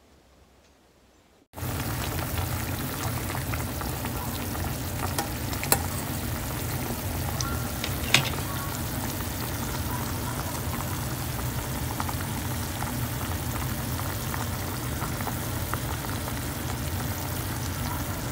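Moringa leaves boiling in water in a stainless saucepan: a steady bubbling hiss that starts suddenly about a second and a half in, after near silence, with two sharp clicks around six and eight seconds in.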